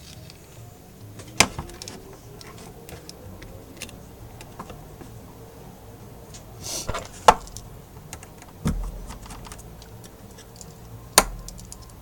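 Small tools and phone parts clicking and tapping on a work surface: scattered light ticks with four sharper clicks, and a short scrape a little before the middle of the second half.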